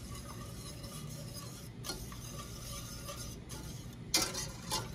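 Wire whisk stirring a thick, creamy sauce in a stainless steel skillet, a soft steady swishing, with two sharp clinks of the whisk against the pan near the end.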